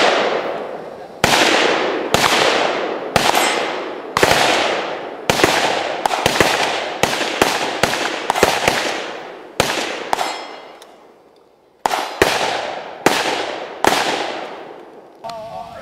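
AK-pattern rifle fired semi-automatically: about twenty single shots at an uneven pace, some in quick pairs, each trailing off in a long echo. The firing stops about fourteen seconds in.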